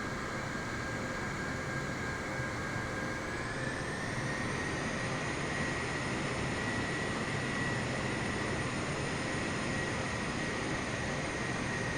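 Jet airliner engines running with a steady rush and a whine that rises in pitch about three to four seconds in, then holds as they spool up.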